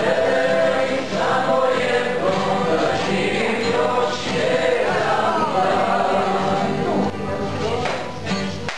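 Several voices singing a folk song together with strummed guitar accompaniment; the singing grows quieter in the last couple of seconds.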